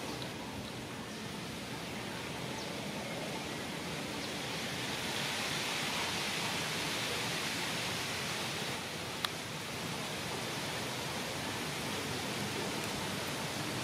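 Steady outdoor background hiss, a little brighter from about five seconds in, with one sharp click near the middle.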